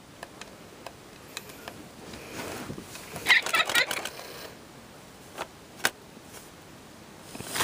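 A hand handling a battery-operated Halloween figure: scattered clicks and knocks, with a short voice-like burst about three seconds in.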